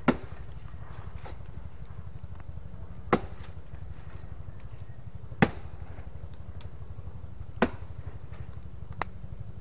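A blade chopping into the soft trunk of a kepok banana plant to bring the fruit bunch down: sharp chops about two seconds apart, a few of them lighter, over a steady low hum.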